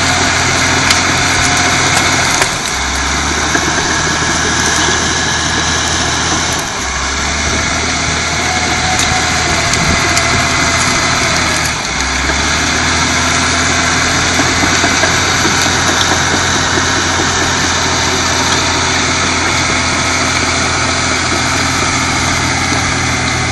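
Caterpillar D5M crawler dozer's diesel engine working steadily under load while it pushes into dead trees, with clattering tracks and crackling brush. The engine note dips and changes pitch three times in the first half.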